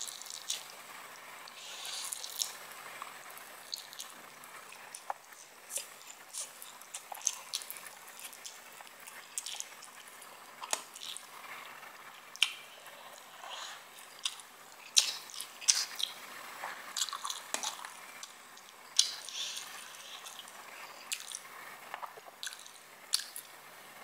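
Close-miked eating of spicy instant ramen noodles: wet slurps as forkfuls of noodles are sucked in, with chewing and many short lip smacks and mouth clicks.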